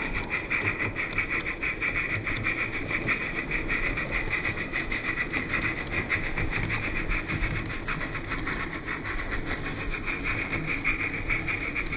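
Exhaust beat of a Roundhouse Engineering Taliesin live-steam narrow-gauge model locomotive, played back slowed to about a third of normal speed: an even, rapid run of steam chuffs with a hiss.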